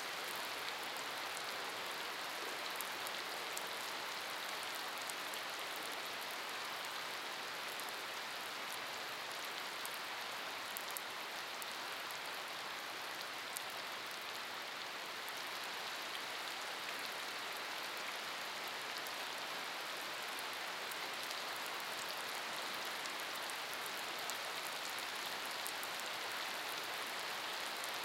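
Steady rain falling on wet, puddled pavement: an even hiss of drops, with the fine ticks of individual splashes on top.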